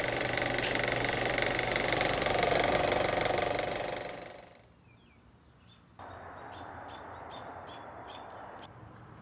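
Fast mechanical clatter of an intro sound effect under a title card, fading out after about four seconds. About six seconds in, a soft steady hiss starts, with a run of sharp clicks about two a second.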